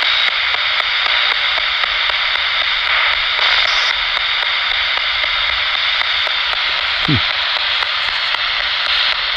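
Radio static from a ghost-hunting radio device: a steady loud hiss with a fast run of faint regular clicks, and one brief falling tone about seven seconds in.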